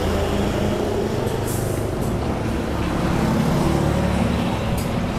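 Steady street traffic: engines of nearby road vehicles running and passing.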